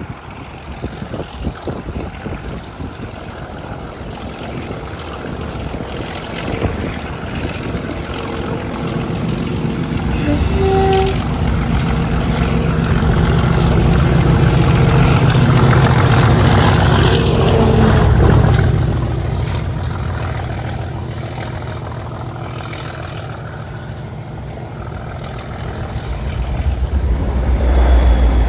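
Class 37 diesel locomotive's English Electric V12 engine working hard as the train approaches and passes close by, growing louder to a peak about halfway, then easing off. Near the end, the trailing locomotive's engine rises to a second loud peak as it passes.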